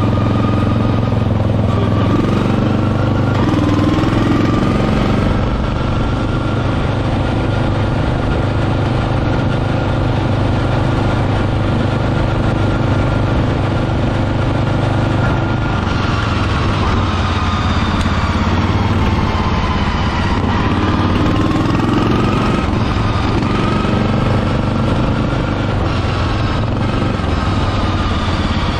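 A 12 hp Briggs & Stratton engine on a riding mower runs steadily at speed as the mower drives. Its note sags and picks up again a couple of times, most clearly a little after halfway.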